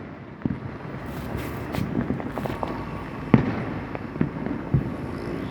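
Deepavali fireworks and firecrackers going off: a steady scatter of many distant cracks and pops, with a few louder sharp bangs, the loudest about three and a half seconds in.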